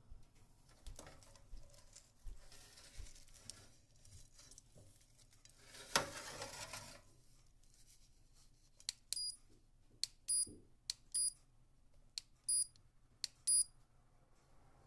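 Handling clicks in a frying pan as a digital fork thermometer is worked into a chicken breast, with a sharp clack and a brief rustle about six seconds in. From about nine seconds on, the fork thermometer gives seven or so short, high electronic beeps at uneven spacing.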